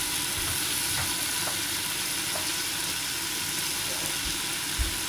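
Cabbage steam-frying in oil under a glass lid: a steady sizzle with a few faint pops, still at the oil-frying stage before the cabbage has given up much of its water.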